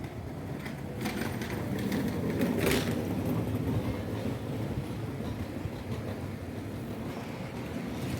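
Train running on the rails, its wheels clattering loudest a couple of seconds in, then settling into a steady rumble.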